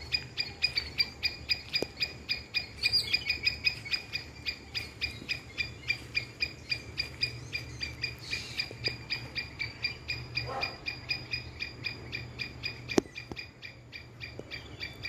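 A steady, rhythmic chirping call, about five short pulses a second, repeating without a break. A single sharp click sounds near the end.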